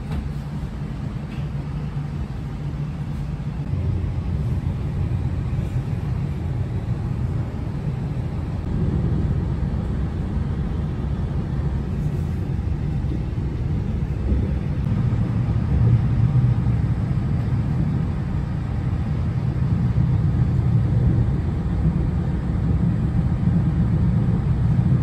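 Steady low rumble of a passenger train running along the track, heard from inside the carriage, gradually growing a little louder.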